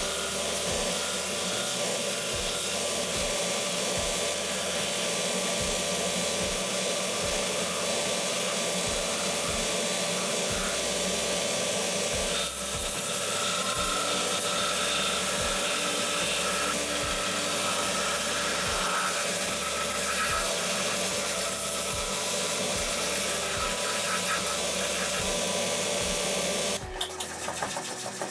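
A power tool running steadily with a loud, even hiss, cutting off about a second before the end.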